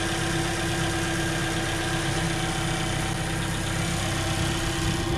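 Mazda CX-5's SkyActiv four-cylinder petrol engine idling steadily under the open hood, with a constant hum over a low rumble.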